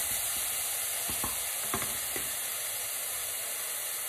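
Chopped garlic and chili sizzling in hot oil in a frying pan, with a wooden spoon stirring and knocking against the pan a few times in the first couple of seconds, then the sizzling alone.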